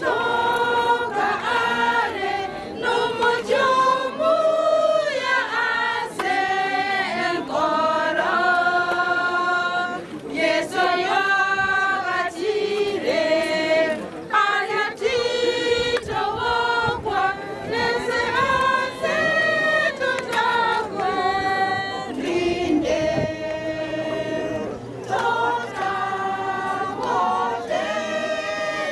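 A group of voices singing together unaccompanied, a choir-like song of long held notes that carries on without a break.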